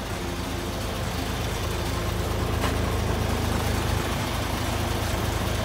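Isuzu Giga heavy truck's diesel engine idling steadily, a low, even engine note.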